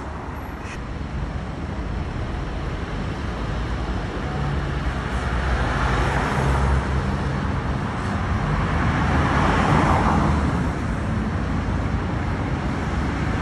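Street traffic: cars passing close by with tyre and engine noise, rising and falling twice, over a steady low diesel hum from heavy vehicles at the crossing.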